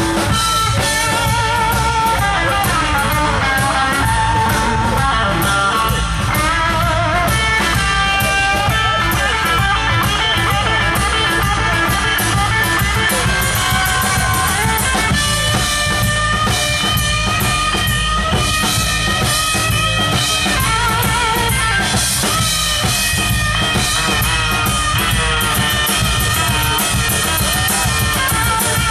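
A live rock band playing loudly and without a break: electric guitars over bass and a drum kit keeping a steady beat.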